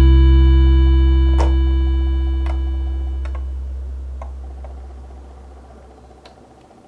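Background music: a held chord fading out steadily until it has nearly died away, with a few faint clicks over it.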